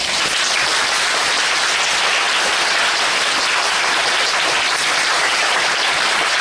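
Audience applauding steadily at the end of a choir song.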